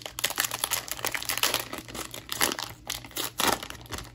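Trading-card pack wrapper being torn open and peeled back, crinkling and crackling throughout, with sharper crackles about two and a half and three and a half seconds in.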